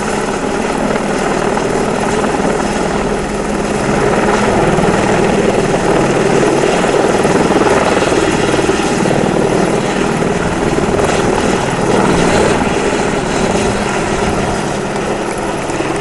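Helicopter hovering close overhead: a loud, steady rotor and turbine roar that swells a little about four seconds in and eases slightly near the end.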